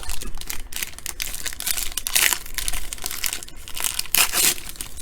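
Crinkling and rustling of a foil trading-card pack wrapper being handled, a rapid uneven series of crackles.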